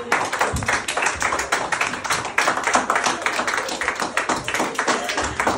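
A small group of people clapping their hands, a quick, unbroken run of sharp claps.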